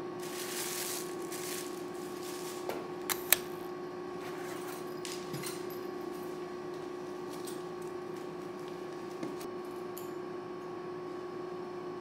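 Plastic wrapping rustling for about the first second and a half, then quiet handling of a suture-practice case and small metal instruments, with a few light clicks and a sharper one about three seconds in, over a steady hum.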